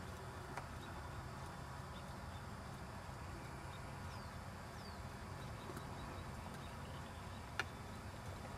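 Faint hoofbeats of a Welsh pony moving over a sand arena under a steady low rumble, with two short high chirps about four seconds in and a sharp click near the end.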